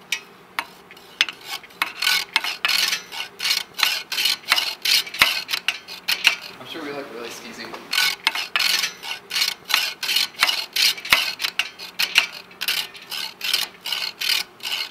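Rhythmic back-and-forth rasping strokes of a hand tool working at something, about three strokes a second, pausing briefly a little past the middle and then going on.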